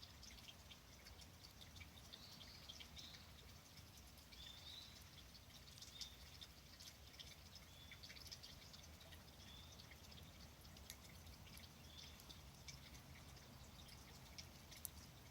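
Wood fire crackling faintly, with scattered soft pops and ticks and a few short high chirps.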